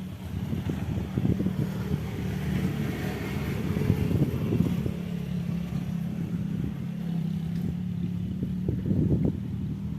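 A motor engine running close by: a low rumble with a steady hum.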